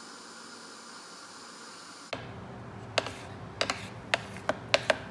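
Blender motor running steadily, stopping abruptly about two seconds in. Then a spatula scrapes the inside of the plastic blender jar and knocks against it in a string of short, sharp clicks, clearing flour stuck to the sides.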